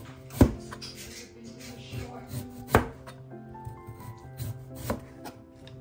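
Kitchen knife slicing through a peeled chayote and striking a plastic cutting board: three sharp chops about two seconds apart, the first the loudest, with lighter cuts between.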